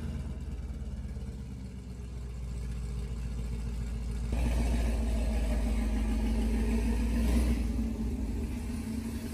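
2017 Camaro SS's 6.2-litre LT1 V8 running at low speed with a steady low rumble, growing louder about four seconds in.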